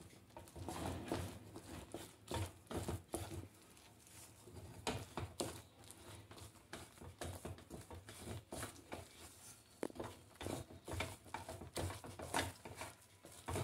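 Wooden spatula stirring and mashing thick ragi flour dough in a nonstick pan, with irregular soft knocks and scrapes against the pan. The flour is being worked into boiling water to make a cooked dough.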